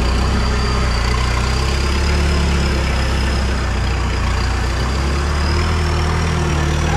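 Off-road 4x4's engine running at low, steady revs as the vehicle crawls over a rutted dirt track, with a thin high whine that rises slightly near the end.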